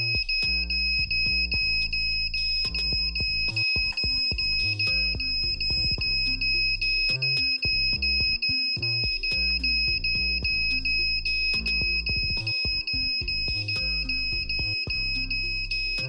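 Piezo buzzer of a homemade 555-timer smoke and gas alarm sounding a steady high-pitched tone, the alarm set off, over background music with a beat and bass line.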